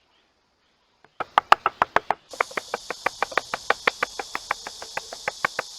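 A fast, even run of sharp taps or clicks, about six a second, starting about a second in, with a steady high hiss joining about a second later.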